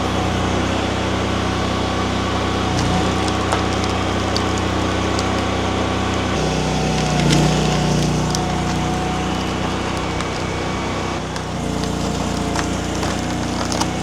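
Mini skid steer engine running steadily while its hydraulics drive a wood splitter attachment through a pecan round. The engine note shifts under changing load about six seconds in and again past eleven seconds, with scattered sharp cracks of splitting wood, more of them near the end.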